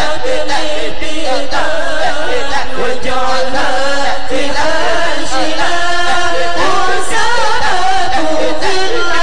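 Congregation chanting a sholawat, an Arabic devotional song, together in a slow, winding, ornamented melody.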